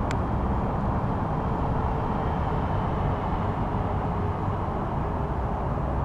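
Steady outdoor background rumble, with a brief tick right at the start and a faint high whine in the middle.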